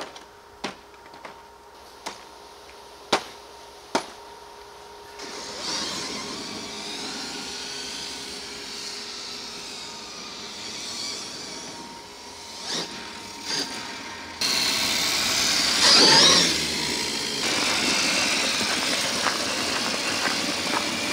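Large 100 lb electric RC trail truck, a Primal RC V3 Mega converted to a sensored Castle Mamba X2 direct-drive system. A few sharp clicks and knocks come first as its body cage is fitted to the chassis. Then the electric drivetrain whines and the tyres roll over pavement, and after a cut the driving noise is louder, with a loud rush about 16 seconds in.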